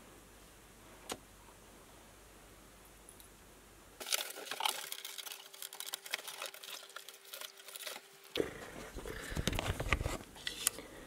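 Quiet room tone with a single tap about a second in. From about four seconds in come cardboard rustling and scraping with many clicks and knocks as bicycle wheels in cardboard protectors are lifted out of a bike box.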